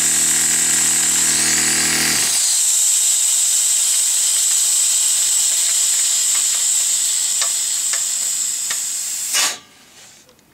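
12 V direct-drive air compressor running with compressed air hissing out loudly through its stuck-open check valve. The motor stops about two seconds in while the hiss carries on, then the hiss cuts off suddenly with a knock near the end. The check valve that is meant to shut is staying open, so the air escapes instead of going into the tank.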